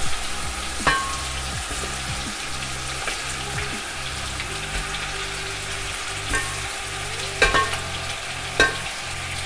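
Raw chicken pieces going into hot oil and garlic-ginger paste in an aluminium pot, frying with a steady sizzle. Sharp crackles come as pieces land, a few of them close together near the end.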